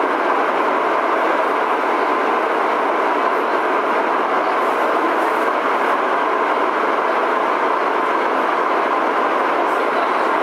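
Prague Metro M1 subway train running at speed between stations, heard from inside the car: a steady rolling rumble of wheels on rail with a faint constant hum.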